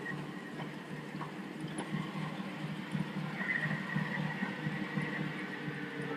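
Hand-pushed miniature-railway turntable turning with a ride-on locomotive on it: a steady rumbling clatter of the deck rolling round the pit, with a thin high whine joining about halfway through.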